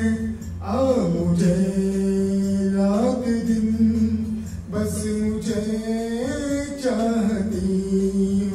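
A man singing a Hindi song into a microphone, holding long drawn-out notes that slide up and down between phrases.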